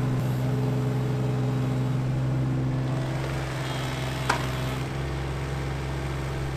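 Case CX17C mini-excavator's diesel engine running steadily under load as the boom lifts a bucket of dirt out of the trench. A single sharp knock sounds about four seconds in.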